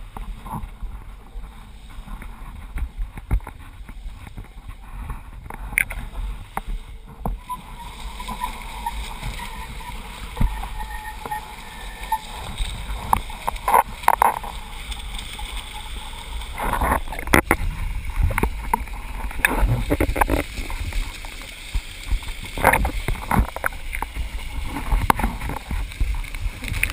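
Wind buffeting a body-mounted camera's microphone while a strapless kite surfboard planes over choppy water, with water rushing past. From about halfway on come frequent sharp splashes and slaps as the board hits the chop and throws spray.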